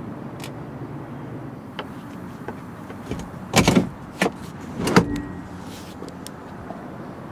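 Front passenger seat of a Fiat 500 Abarth being unlatched by its red strap and tipped forward: a quick run of clicks and clunks about halfway through, then two more single clunks within the next second or so.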